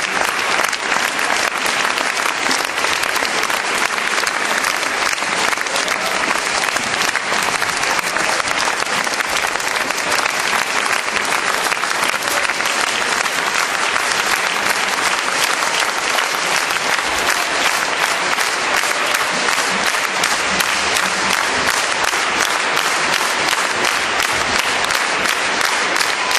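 Audience applauding loudly and steadily after a choir performance, with the clapping falling into a more even rhythm in the last few seconds.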